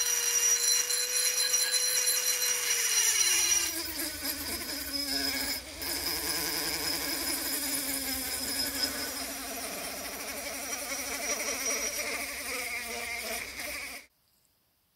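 Handheld rotary tool running against cast iron, first with an abrasive grinding stone throwing sparks, then with a sanding drum; its high whine drops in pitch a few seconds in and stays lower. The sound cuts off suddenly near the end.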